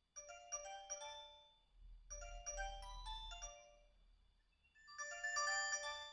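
Ringtone of an Alcatel One Touch 217D mobile phone playing through its small speaker: a chiming tune in three quick runs of notes, with short gaps between them.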